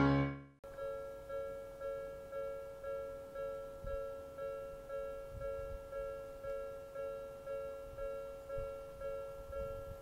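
Piano music stops about half a second in. Then a Japanese railway level crossing's electronic warning bell rings steadily, about two strikes a second, with the barriers lowered: the signal that a train is approaching.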